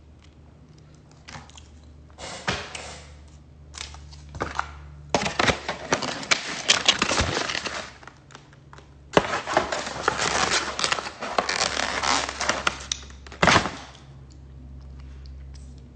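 Rustling and crinkling handling noise close to a phone's microphone, in two long stretches, with scattered clicks and a sharp knock near the end, over a low steady hum.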